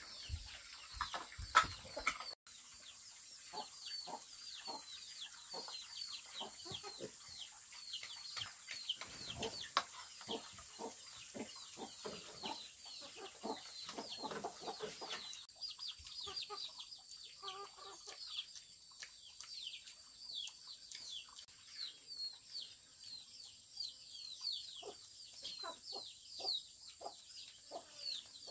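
Chickens clucking, with a rapid stream of short, high, falling chirps throughout and a constant high-pitched whine behind them.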